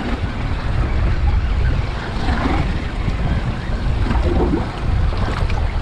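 Wind buffeting the microphone over a steady low rumble, with choppy sea water washing against a small boat's hull.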